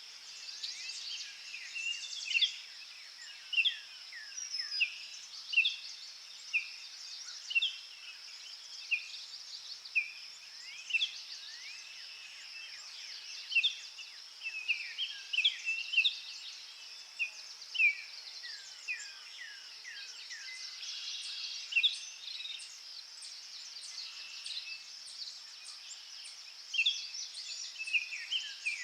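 Small songbirds chirping and calling over and over, a few short downward-sliding chirps every second, over a steady high hiss.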